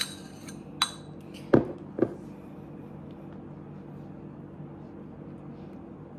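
A small glass jar clinking as sauce is scraped out of it, then knocked down twice on the counter. A faint steady low hum follows.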